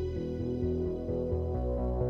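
Ambient instrumental background music: held synthesizer-like notes over a bass line that steps from note to note every quarter second or so.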